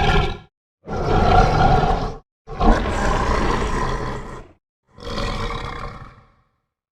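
Concavenator dinosaur roar sound effect: separate deep, growling roars with dead silence between them. The tail of one roar ends, then three more follow, the last one quieter and shorter.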